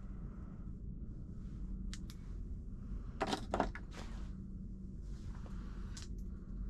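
Light clicks and rattles of fishing tackle being handled while treble hooks are baited, with a cluster of sharper clicks about three seconds in, over a steady low hum.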